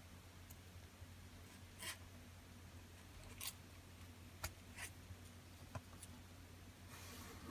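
Near silence with a low steady hum, broken by a handful of faint clicks and short rustles from a black metal-mesh Milanese watch band and its magnetic clasp being handled and adjusted on the wrist.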